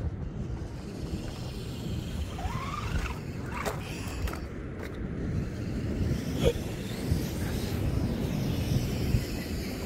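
Radio-controlled model cars driving: a motor whines up in pitch briefly a few times over a steady low rumble, with a few light clicks in the middle.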